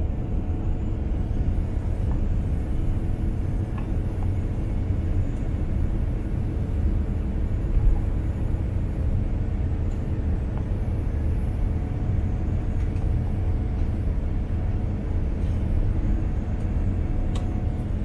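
GE GEnx turbofan engines of a Boeing 787-10 running at takeoff thrust in the initial climb, heard inside the cabin: a steady deep rumble with steady hum tones and a faint high whine over it.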